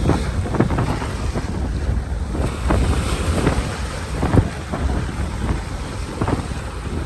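Waves breaking on a beach, heard through heavy wind noise on the microphone: a steady low rumble with short irregular buffets, the strongest about four seconds in.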